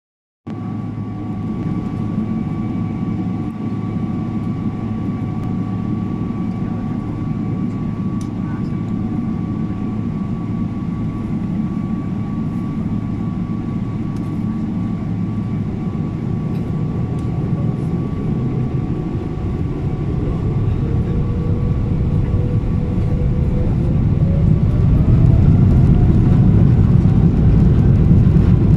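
Boeing 777-300ER's GE90-115B turbofans heard from inside the cabin: a steady hum with a faint whine. About twenty seconds in, a whine rises in pitch and the noise grows louder as the engines spool up to takeoff thrust.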